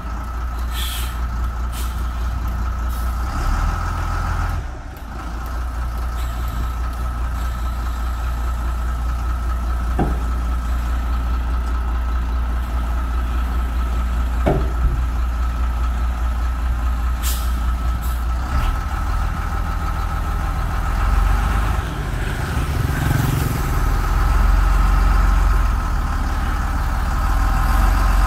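Dump truck diesel engine running steadily while the tipper body lowers after unloading sand, with a steady thin whine over the engine and a couple of sharp clicks. The engine grows louder near the end.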